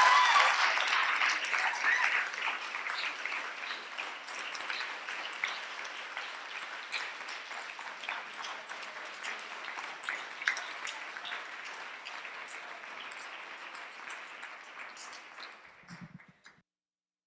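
Audience applauding, loudest at first and slowly dying away, then cutting off suddenly near the end.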